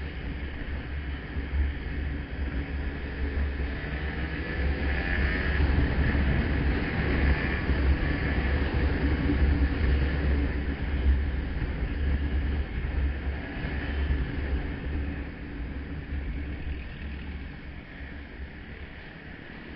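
Motorcycle riding in traffic: its engine running with road noise and wind rumble on the bike-mounted camera's microphone. It grows louder through the middle and eases off near the end.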